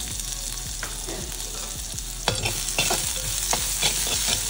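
Chopped onions and cumin seeds sizzling in hot oil in a pan. A little over two seconds in, they start being stirred, the utensil clicking and scraping against the pan.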